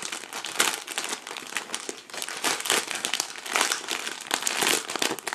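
Cellophane wrapping and small plastic bags of diamond-painting drills crinkling as they are handled and unwrapped, in continuous irregular crackles.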